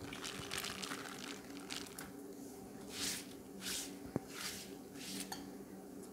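Hands rubbing and smoothing a wet banana leaf: a string of short swishes, about six, with a light tap about four seconds in, over a faint steady hum.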